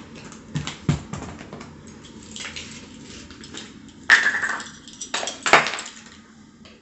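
Handling a spice jar and a ring of metal measuring spoons while measuring garlic powder: a few light clicks, a soft shaking rustle, then two louder clattering scrapes about four and five seconds in.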